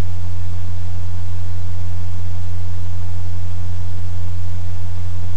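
Steady low electrical hum with a hiss of background noise, unchanging throughout: mains hum in the recording setup, with no other sound.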